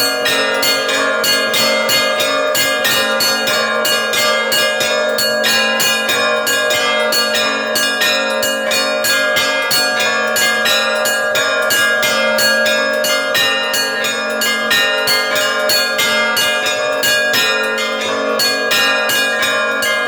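Russian Orthodox church bells rung by a single bell ringer. Rapid, continuous strokes come several a second over the steady, lasting ring of the bells.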